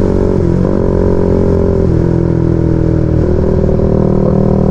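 Motorcycle engine running under way at road speed, heard from the rider's seat with wind on the microphone. Its note dips briefly twice, about half a second and two seconds in, as the bike slows from about 70 to under 60 km/h.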